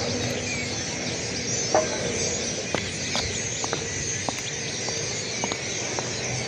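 A large flock of birds calling all at once, a dense, continuous mass of overlapping chirps and short whistled notes, with a faint low hum underneath.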